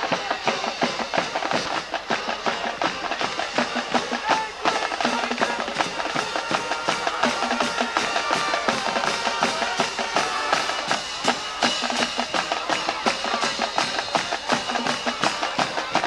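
A school band in the stands playing, drums beating a steady rhythm with brass notes over it.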